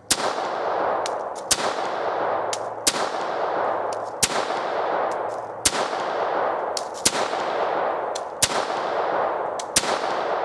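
Harrington & Richardson self-loading .32 ACP pistol, made around 1924, fired eight times at a slow, steady pace about one and a half seconds apart. Each shot is followed by a long echo off the surrounding woods.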